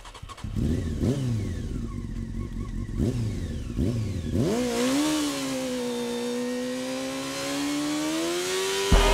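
Motorcycle engine sounds laid over an intro: three short revs, each rising and then falling in pitch, then one long held engine note that climbs slowly in pitch. A music track cuts in just at the end.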